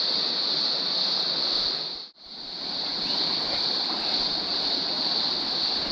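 Shallow stream running over stones and gravel, with a steady high insect chorus over it. The sound drops out for a moment about two seconds in, then resumes.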